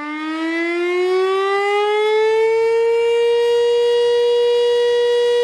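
Fire siren winding up, its pitch rising smoothly for about three seconds, then holding one steady tone.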